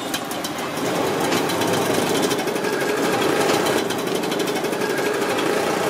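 A small engine running close by with a fast, steady knocking rattle, over general street noise.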